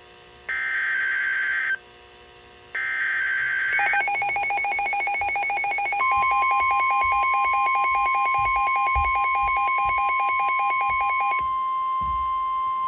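Emergency Alert System alert on NOAA Weather Radio. Two short screeching SAME digital header bursts end about 4 s in. A rapidly pulsing electronic alarm beep then starts, and about 6 s in the steady 1050 Hz weather-radio warning alarm tone comes on. The pulsing beep stops about 11 seconds in, leaving the steady tone.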